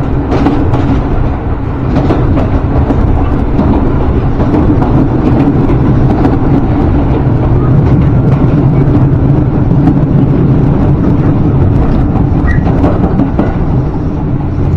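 Commuter train running along the track, a steady rumble of wheels and running gear with scattered light clicks.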